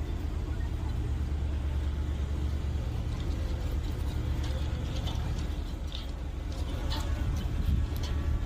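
Heavy machinery engine running with a steady low rumble, with a few short knocks about five to seven seconds in.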